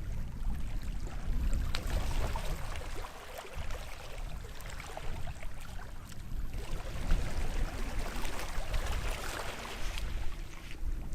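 Small waves washing onto the shore of a sheltered bay, in two swells that rise and ebb, over a steady low rumble of wind on the microphone.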